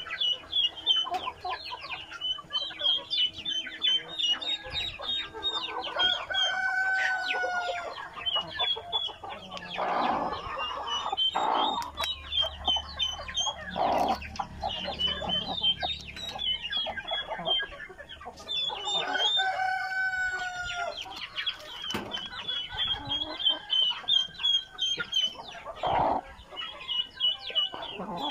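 Chickens clucking and squawking, over a continuous rapid high-pitched chirping, with two longer drawn-out calls, about a third of the way in and again about two-thirds in.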